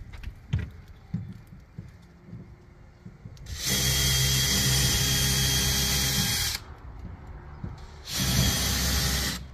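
Cordless power drill running in two bursts, one of about three seconds and then a shorter one of just over a second, each a steady motor whine that starts and stops abruptly.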